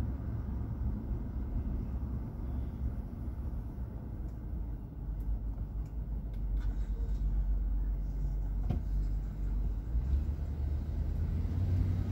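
Low, steady rumble of a car's engine and tyres heard from inside the cabin while driving slowly in town traffic, growing a little louder in the second half.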